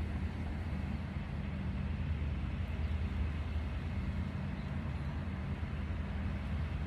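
Steady low mechanical rumble with a constant hum, like a running engine.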